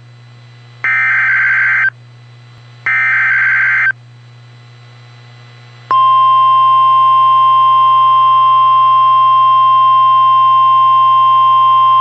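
Emergency Alert System alert sequence. The last two of the three buzzy digital header bursts that encode the warning, here a snow squall warning, each about a second long and a second apart. After a short gap, a loud, steady attention tone starts about six seconds in and holds.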